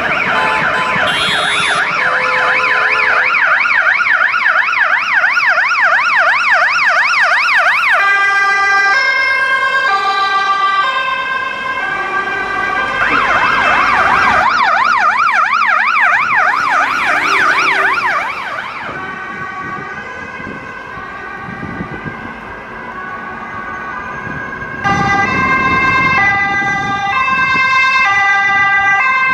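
Emergency vehicle sirens passing. A rapid yelp switches to a two-tone hi-lo about eight seconds in and back to a yelp a few seconds later. After a quieter stretch, a loud two-tone hi-lo starts near the end.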